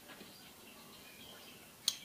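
Mostly quiet, with faint high ticks, then one sharp metallic click near the end from a hand tool on the connecting-rod cap bolts.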